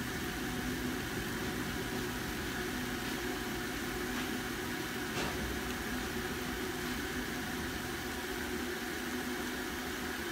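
Steady hum and whir of a running appliance, with a faint click about five seconds in.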